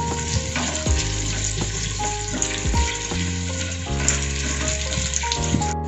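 Onion pieces sizzling as they fry in hot refined oil in a non-stick pan, with a slotted spatula stirring them and scraping the pan now and then. The onions are at the stage of frying until the raw smell is gone, not yet browned.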